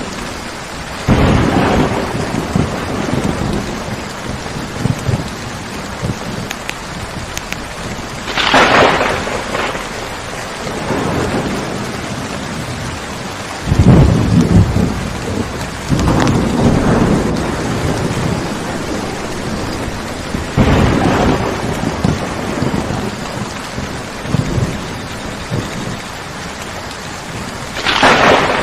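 Steady heavy rain, with several rolls of thunder rising and fading over it every few seconds.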